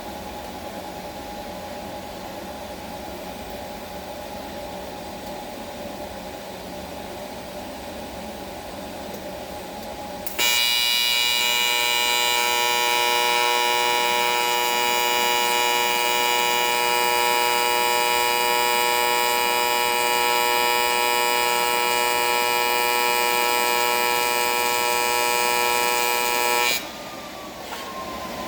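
AC TIG welding arc on aluminum buzzing loudly and steadily. It strikes suddenly about ten seconds in and cuts off near the end. Before and after it the welder hums more quietly, with a slowly falling whine.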